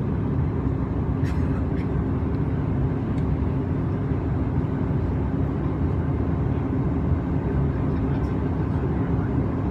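Steady cabin noise of a Bombardier CRJ-700 regional jet in its climb after takeoff: its two rear-mounted turbofan engines and the rushing air give an even rumble with a steady low hum through it, and a few faint clicks.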